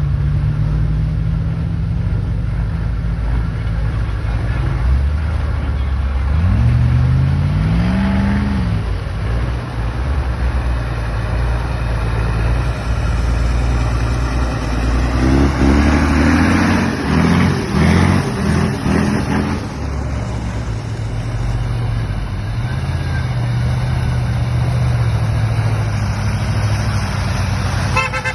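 Mercedes-Benz Unimog trucks' engines running under load as the trucks drive through one after another, revving up about a quarter of the way in and rising and falling quickly about midway.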